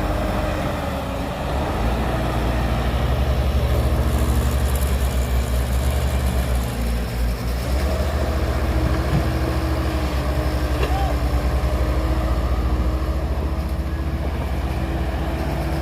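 Heavy diesel engine of earth-moving machinery running steadily with a low, pulsing rumble and a steady higher tone above it; it grows a little louder about two seconds in.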